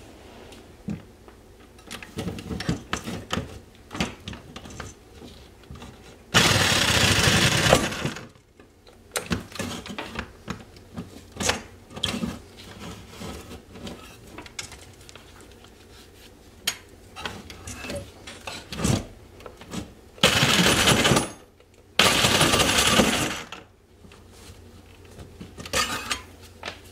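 A cordless power saw runs in three short bursts of a second or two each, cutting the nails that hold a metal electrical box in the wall. Clicks and metallic knocks come between the bursts.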